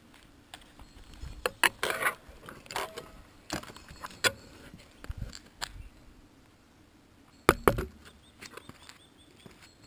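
Handling noise from a camera and gimbal rig: scattered clicks, rattles and knocks, the loudest a pair of knocks about seven and a half seconds in as the rig is set down on asphalt.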